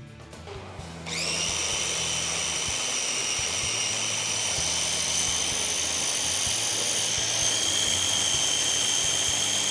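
Small electric food processor switched on about a second in, its motor spinning up and then running at a steady high whine while it grinds eggplant flesh for baba ghanoush.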